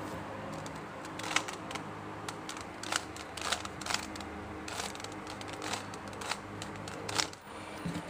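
A plastic Rubik's cube being twisted by hand: irregular clicks and clacks as its layers are turned.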